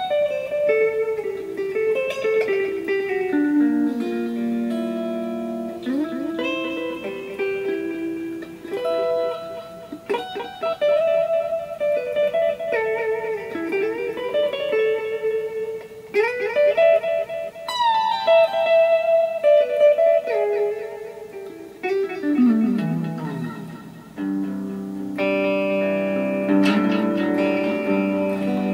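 Electric guitar played through a Vox amplifier and the repaired Ibanez DE7 delay/echo pedal. It plays melodic single-note phrases, then a fast descending run about three quarters of the way through, then fuller held chords near the end.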